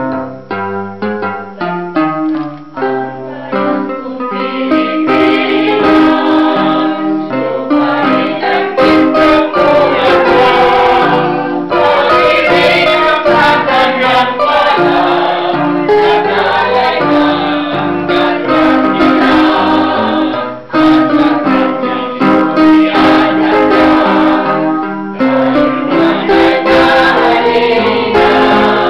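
Small mixed choir singing together to an electronic keyboard accompaniment. The keyboard plays alone for the first few seconds before the voices come in, with a brief break between phrases about two-thirds of the way through.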